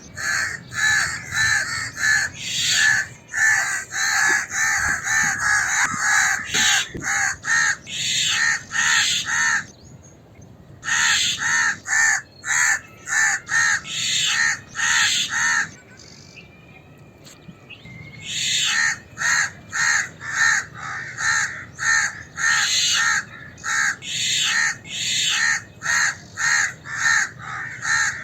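House crow giving rapid, harsh alarm caws, about three a second, in long runs broken by two short pauses, about ten and about sixteen seconds in.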